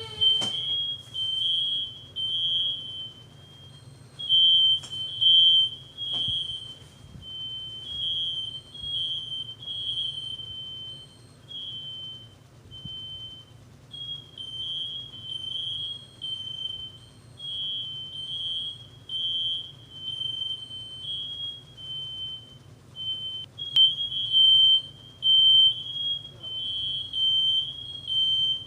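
Fire alarms beeping over and over in a high, piercing tone, one to two beeps a second in an uneven, overlapping pattern at two slightly different pitches. It is a false alarm, set off with no fire and no cooking. A faint low hum runs underneath.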